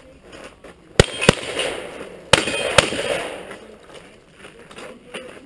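Four shotgun shots in two quick pairs: two about a second in, a third of a second apart, then two more about a second later, each pair trailing off in an echo.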